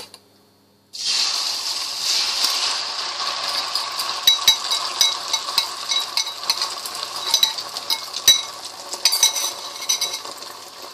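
Beaten egg frying in very hot oil in a nonstick wok as an omelette, sizzling. The sizzle starts suddenly about a second in, with scattered sharp crackling pops, and eases slightly toward the end.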